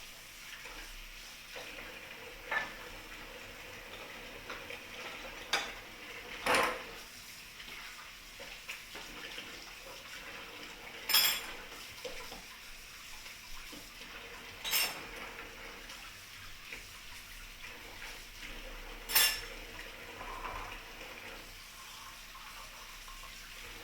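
A utensil stirring a stir fry of vegetables and rice in a pan, clinking sharply against the pan about six times, several seconds apart, over a faint steady hiss.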